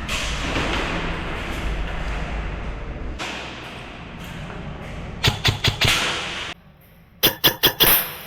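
Wind and movement noise, then two quick bursts of about five sharp cracks each, a little over a second apart: airsoft guns firing in rapid succession.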